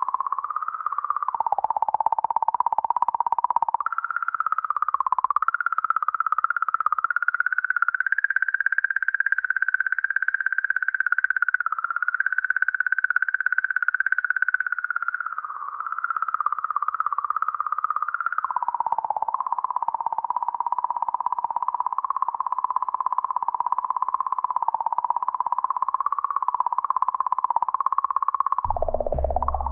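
Sonified 'singing comet' signal from comet 67P, the magnetic-field oscillations recorded by the Rosetta mission and raised into hearing range. It is one wavering electronic tone that shifts up in pitch a few seconds in and back down about halfway through. Near the end a deep pulsing bass comes in.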